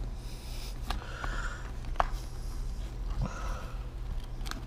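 Nylon webbing rustling and scraping as a plastic Malice clip strap is worked through the MOLLE loops of a plate carrier, with three sharp small clicks.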